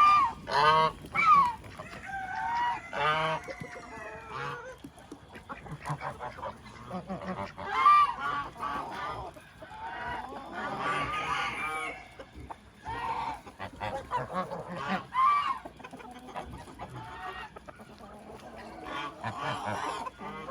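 Farmyard poultry calling: geese honking over and over among clucking chickens, the calls overlapping with brief lulls.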